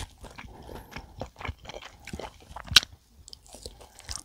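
Close-miked chewing with wet mouth clicks and smacks, with a sharp louder click about two-thirds of the way through.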